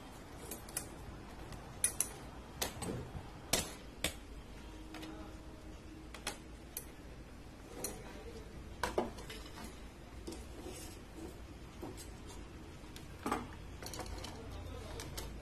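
Irregular sharp clicks and light metallic knocks as a desktop motherboard is handled and fitted into the metal board-holder rails of a BGA rework station, over a low steady hum.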